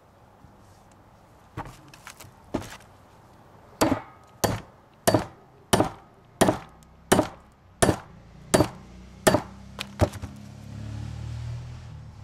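Hammer tapping a new U-joint's bearing cup into the axle shaft yoke, seating it so the keeper groove lines up. A few light taps come first, then about nine evenly spaced strikes, roughly three every two seconds, stopping about ten seconds in.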